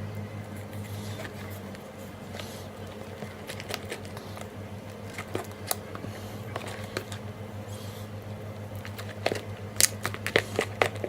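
Fluffy slime with foam beads being stirred: scattered squishing, crackling clicks that come thicker near the end, over a steady low hum.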